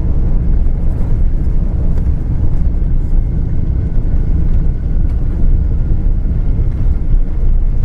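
Loud, steady low rumble heard inside the cabin of a Boeing 777 rolling out along the runway just after touchdown, with a faint whine over it.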